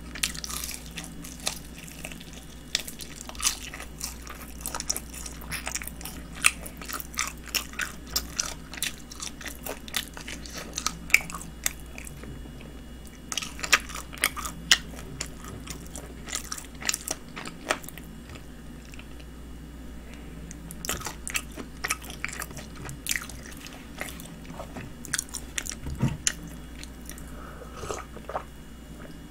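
Close-up crunching and chewing of Kyochon Honey Combo, a honey-glazed fried chicken: irregular crackles of the crisp coating, now in quick clusters, now sparser.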